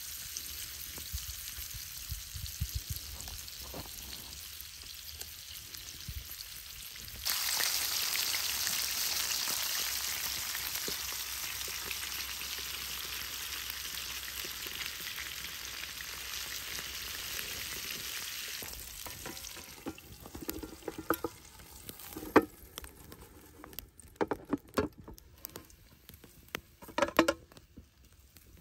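Red mullet frying in hot oil in a pan over a wood fire: after a quieter stretch while the oil goes in, a loud, steady sizzle sets in suddenly about seven seconds in and runs for some ten seconds before easing off. Near the end, scattered sharp clicks and knocks are heard as the pan is handled and lidded.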